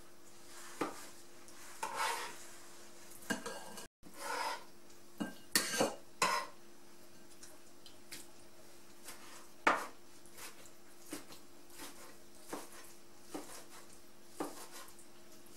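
Kitchen knife slicing skinned salted herring fillets on a plastic cutting board: irregular knocks of the blade meeting the board, about one a second, a few louder ones around the middle.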